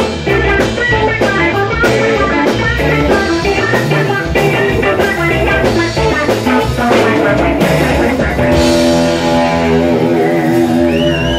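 Rock band playing: electric guitar lines over drum kit, then at about eight seconds in the band settles into a long held chord, and near the end a high wavering guitar note rings over it.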